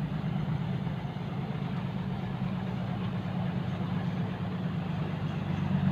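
Truck engine running steadily at low revs, a constant low hum with no revving.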